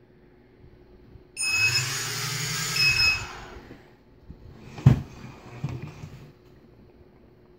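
Brushless motors of a quadcopter with no propellers whirring for about two seconds, with two short high beeps over them. Later a single sharp knock and some handling clatter as the frame is moved.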